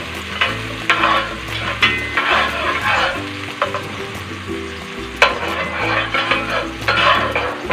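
Chopped onions frying in olive oil in an enamelled pot, sizzling as a spatula stirs and scrapes them over the bottom in repeated strokes. The onions are being sautéed until lightly browned. A sharp knock of the spatula against the pot comes about five seconds in.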